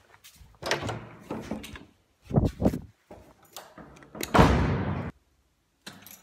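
A door being handled and opened: several knocks and thuds with scraping, the loudest a longer scraping rush about four seconds in.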